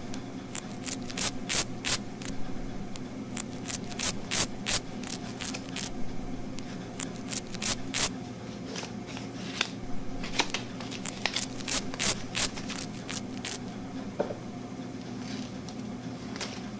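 Paper playing cards being handled and snapped: quick clusters of sharp flicks and slaps, over a steady low hum.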